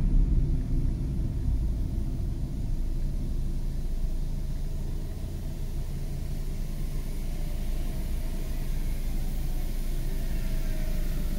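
Steady low rumble of a car driving on city streets, engine and tyre noise, a little louder in the first second and then easing off.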